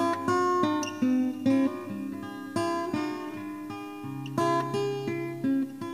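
Guitar instrumental: single notes picked one after another in a flowing pattern over a held low bass note.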